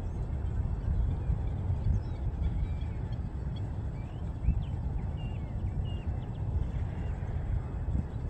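Wind rumbling on the microphone, with a few faint bird chirps in the middle.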